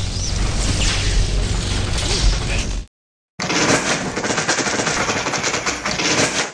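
Two lightsaber blade lock-up sound effects, one after the other with a brief silence about three seconds in. Each is a sustained crackling sizzle of blades held pressed together, over a low hum.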